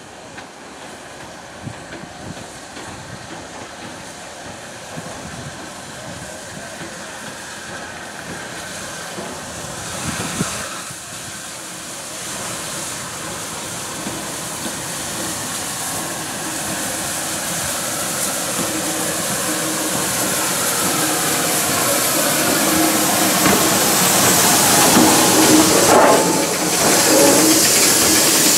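Bulleid West Country class steam locomotive arriving slowly into a station platform, getting steadily louder as it draws near, with steam hissing as the engine passes close by.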